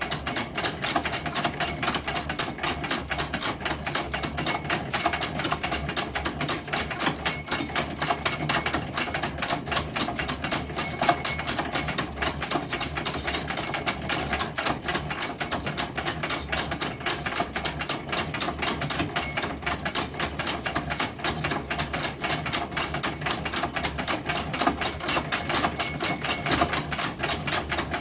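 Antique hand-cranked, self-feeding drill press drilling into metal, its mechanism clicking rapidly and evenly, about four clicks a second.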